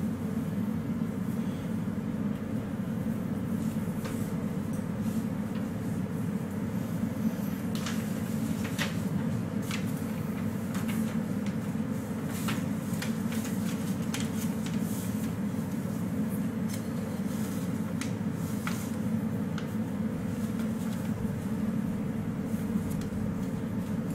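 Steady low machine hum carrying a faint steady tone, with scattered small clicks and taps through the middle stretch.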